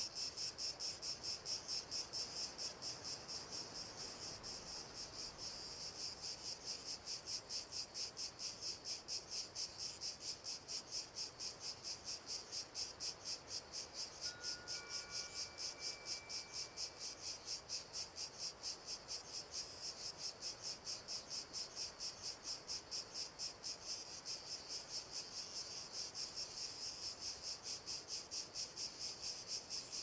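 Insects, cricket-like, chirping steadily: a high-pitched pulsed chirp repeating evenly about three times a second.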